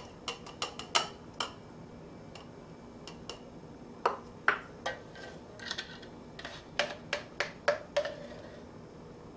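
Sharp clinks and taps of kitchenware: a small bowl knocking against a glass cup as chopped strawberries are tipped in, then a spoon rattling in a glass measuring jug as it is handled. The clicks come in groups, in the first second or so, around four to five seconds in, and again from about six and a half to eight seconds in, with quiet gaps between.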